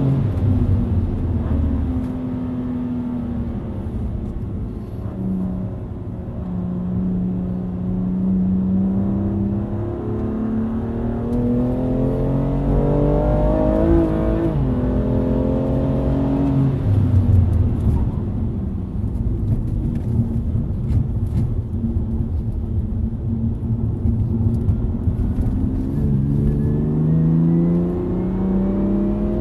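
Car engine heard from inside the cabin while driving at speed on a race track, repeatedly revving up in pitch under acceleration and dropping back, over steady road and tyre noise.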